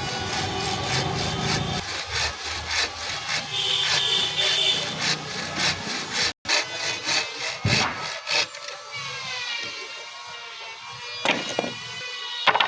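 Hand saw cutting through wood in quick, even back-and-forth strokes. It stops about two-thirds of the way through, leaving a steady hum and two sharp knocks near the end.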